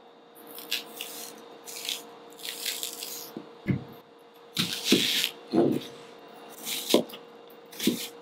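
Kitchen knife cutting a raw onion on a cutting board: short crisp crunches as the blade goes through the onion, then a handful of knocks as the blade meets the board. A steady low hum runs underneath.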